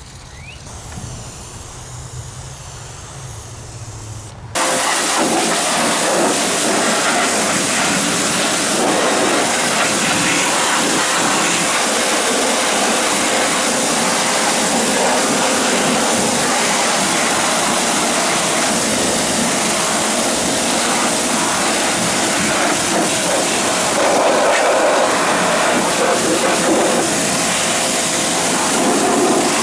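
A low hum, then about four and a half seconds in a loud, steady spraying hiss starts abruptly and runs on without a break, as the engine bay is sprayed down during cleaning.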